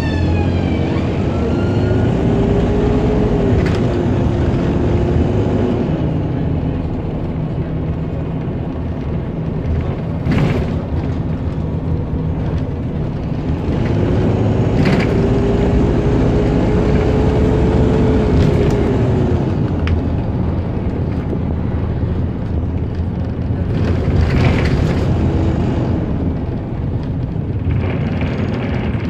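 Optare Solo SR single-deck bus underway, heard from inside its cabin: a steady engine and road rumble, with a whine that rises, holds and falls away twice as the bus speeds up and slows. A few sharp knocks come through the body.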